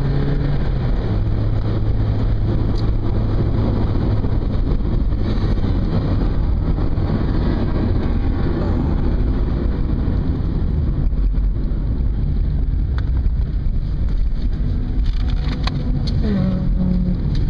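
Mazda MX-5's four-cylinder engine running steadily at low revs, heard from inside the cabin over road noise; its pitch drops about a second in.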